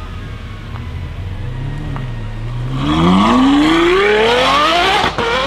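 Japanese performance car's engine running low, then accelerating hard about halfway in, its pitch climbing steadily for about two seconds, with a short sharp break near the end before it climbs again.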